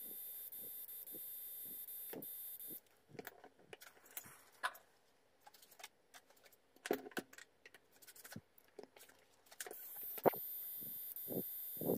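Transformer soldering gun switched on and soldering a wire to a small motor's terminal: a steady high hiss with light ticks about twice a second. It cuts off about three seconds in, leaving scattered small clicks and rustles of wires being handled. The hiss starts again about ten seconds in.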